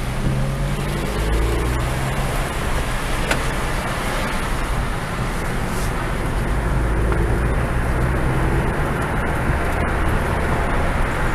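Ford Fiesta ST's turbocharged 1.6-litre four-cylinder engine heard from inside the cabin, pulling as the car accelerates from walking pace, over a steady hiss of tyres on wet tarmac.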